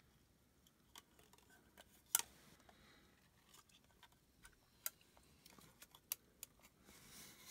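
Faint, scattered clicks and taps of a plastic collapsible LED camping lantern being handled, with a sharper click about two seconds in and another right at the end.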